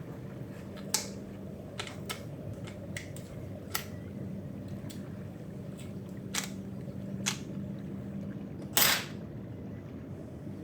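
A series of sharp, irregularly spaced clicks and snaps, about ten of them, with a louder, longer burst near the end, over a steady low hum.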